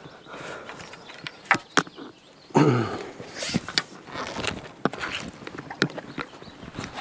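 Feeder rod and tackle being handled and cast: two sharp clicks, a loud rustling knock about two and a half seconds in, then scattered small clicks and knocks.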